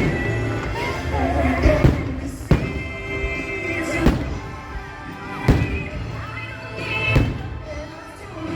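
Fireworks show soundtrack music with singing, punctuated by about six deep firework bursts spaced a second or two apart.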